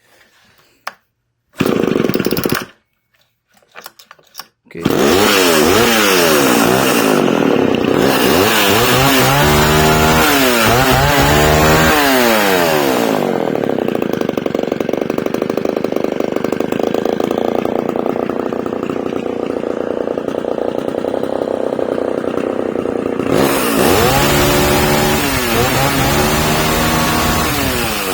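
Vintage Homelite XL12 two-stroke chainsaw with a freshly cleaned carburettor. After a brief loud burst about two seconds in, it starts about five seconds in and is revved up and down several times. It then settles to a steady idle for about ten seconds and is revved up and down again near the end, running well.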